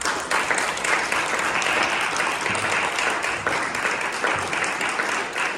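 Audience applauding: dense, steady clapping that breaks out just as the piece ends.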